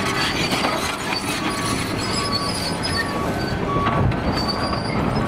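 Caterpillar 953C track loader running and turning on its steel tracks: a steady diesel engine under clanking track links, with short high squeals as the tracks grind through the turn.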